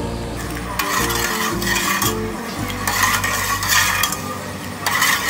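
A plastic ladle stirring water in a metal saucepan: liquid swishing in strokes about once a second, with light scrapes of the ladle against the pot.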